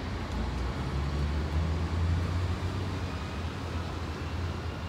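Dodge Caravan minivan driving on a city street: a steady low rumble of engine and tyres that swells about a second and a half in.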